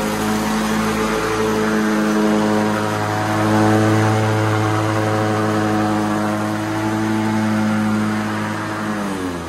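White LT1650 riding mower's Briggs & Stratton engine running steadily at high revs after a deck and drive bearing repair, with revs falling away near the end. It is the quietest it has ever been.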